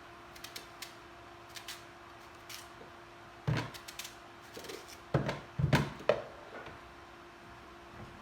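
Light clicks and knocks of objects being handled, with a louder knock about three and a half seconds in and a cluster of louder knocks around five to six seconds. A faint steady hum runs underneath.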